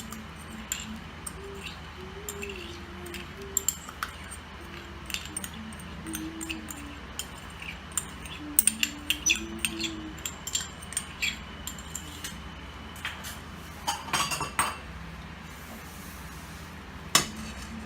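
A spoon stirring soup in a cooking pot, clinking and tapping against the metal in irregular knocks, busiest about halfway through and again near the end.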